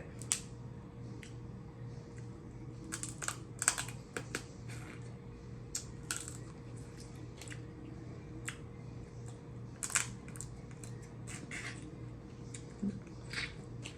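Eating noises close to the microphone: irregular small clicks and snaps from chewing and handling seafood, over a steady low hum.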